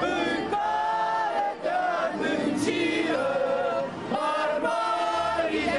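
Crowd of protesters chanting a slogan in unison, many voices holding drawn-out notes, with short breaks between phrases.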